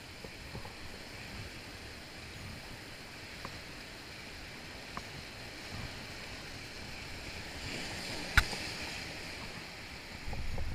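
Sea surf breaking and washing over shore rocks, a steady rush, with a single sharp click about eight seconds in.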